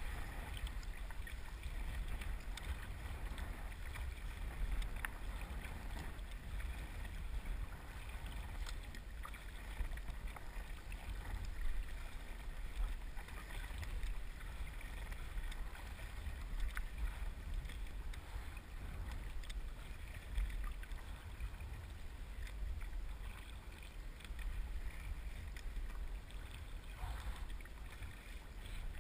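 Paddle blades dipping and splashing as a tandem kayak is paddled, with water sloshing against the hull over a steady low wind rumble on the microphone.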